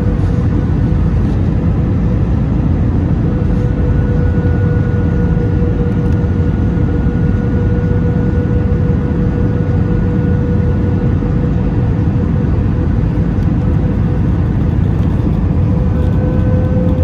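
Airbus A319 cabin noise on approach: a steady deep rumble of the jet engines and rushing air, with a thin steady whine over it.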